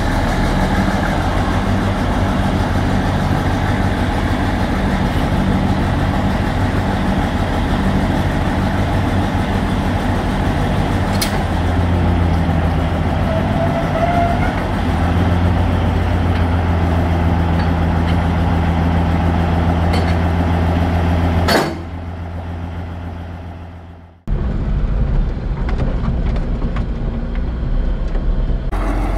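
Diesel engine of an antique Northwest cable-operated power shovel running steadily as the machine works its dipper; its low hum grows stronger about halfway through. About 22 seconds in the sound cuts away, and near the end a mini truck's engine is heard from inside its cab as it drives.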